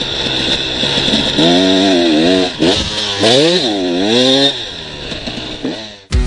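Motorcycle engine running, then revving up and down in pitch a few times from about a second and a half in before it eases off. Guitar music cuts in abruptly at the very end.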